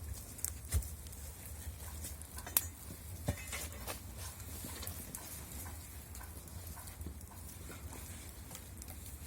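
Wood fire crackling in a fireplace, with irregular sharp pops and snaps over a low rumble. The loudest pops come about a second in and again near three seconds in.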